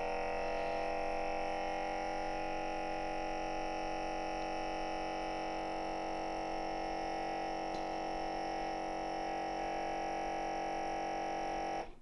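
Anova vacuum sealer's pump running with a steady hum as it draws the air out of a bag of liquid marinade and steaks, then cutting off abruptly near the end as the vacuum stage finishes and the machine switches to sealing.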